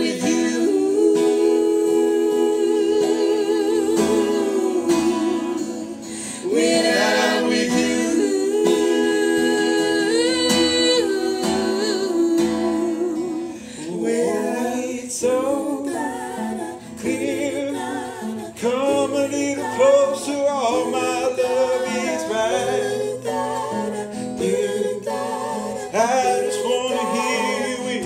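Acoustic guitar strumming under a man's singing voice, which holds long, wavering notes with few clear words.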